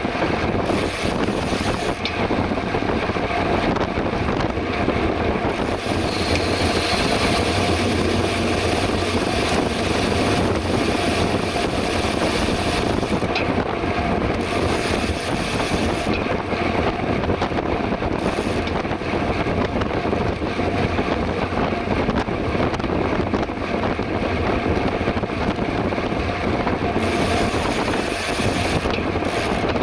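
Steady rush of wind over the microphone of a camera carried on a moving bicycle at race speed.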